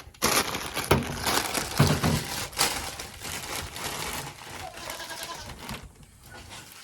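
Water spattering and pattering, a rough crackling hiss that stops about six seconds in.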